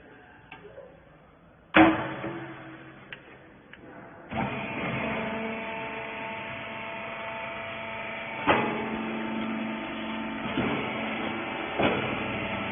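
A sharp metal clang with a short ring, then a hydraulic baler's machinery starts and runs with a steady humming drone, broken twice by metal clanks.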